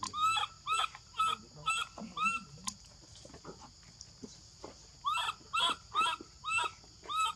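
Baby macaque crying in distress: a run of short, arched squealing calls, about two a second, in two bouts with a pause of a few seconds between. The cries of an infant whose mother has refused to nurse it.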